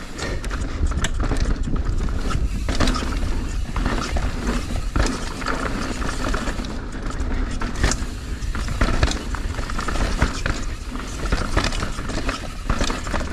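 Mountain bike being ridden on a dirt trail: wind rushing over the microphone, with tyres on dirt and rock and the chain and frame rattling in frequent short clicks and knocks.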